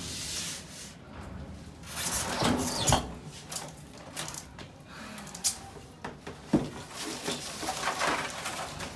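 Rustling and scraping of things being handled, with a few sharp knocks in the second half.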